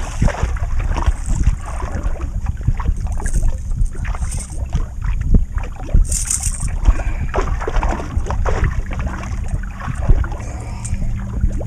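Wind buffeting the microphone in a steady low rumble, with small waves lapping against the boat and scattered light knocks.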